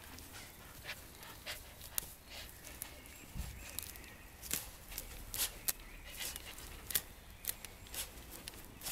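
Husky puppy wrestling with a fluffy duster on grass: irregular sharp rustles and clicks from the fibres, paws and jaws, coming in quick clusters at times.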